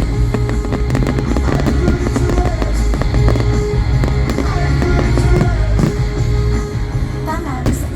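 Loud show music with a heavy bass line, with firework bursts and crackles going off throughout.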